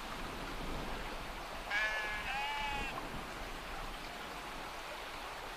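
Two short bleats, one right after the other about two seconds in, from a flock of sheep and goats on the move, over a steady hiss.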